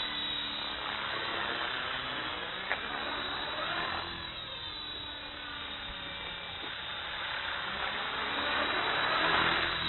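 Radio-controlled model helicopter flying overhead: a steady motor and rotor whine that sweeps up and down in pitch as it manoeuvres, growing louder near the end as it comes closer. A single sharp click about three seconds in.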